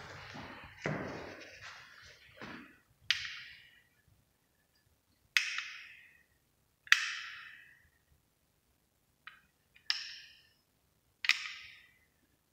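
A series of sharp taps, each ringing briefly, six in all, spaced a second or two apart.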